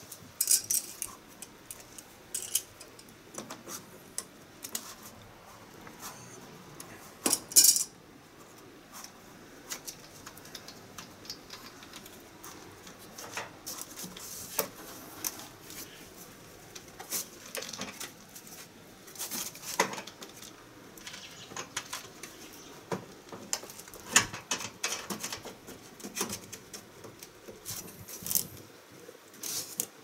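Irregular clicks, rustles and light metallic clinks of hands handling air-conditioner copper refrigerant pipes at the wall pipe hole, the loudest cluster about seven seconds in.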